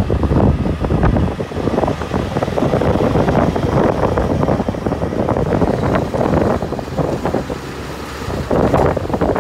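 Kenworth T909 quad roadtrain pulling away, its bulk trailers rolling past close by, with heavy wind buffeting the microphone.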